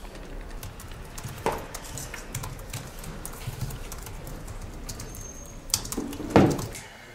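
Irregular light clicks and taps of typing on a laptop keyboard, with a louder knock about six seconds in.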